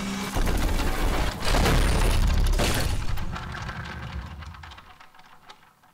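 Cinematic logo-reveal sound effects: two heavy hits with a deep rumble, about half a second and a second and a half in, then a rumbling tail that fades out over the last few seconds.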